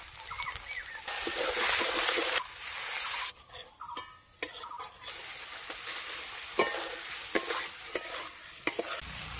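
Spice paste and boiled eggs sizzling in hot oil in a metal kadai while a metal spatula stirs, with sharp clicks as it knocks and scrapes against the pan. The sizzle is loudest between about one and two and a half seconds in.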